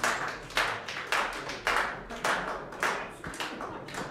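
Many people clapping together in a steady rhythm of about two claps a second.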